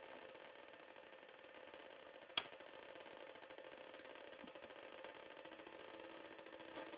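Homemade four-oscillator noise box droning: several steady tones held together, with a new lower tone coming in about two-thirds through as its knobs are turned. A single sharp click about two and a half seconds in.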